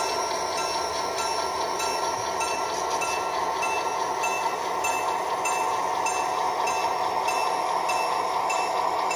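Model freight train rolling slowly along the layout track with a steady running hum, and a short high metallic ping repeating about twice a second.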